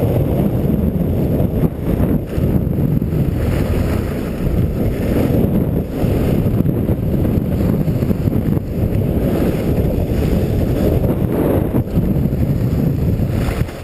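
Wind rushing over the microphone of a skier's action camera during a fast downhill run, a steady low rumble, with the hiss of skis scraping over groomed snow swelling now and then.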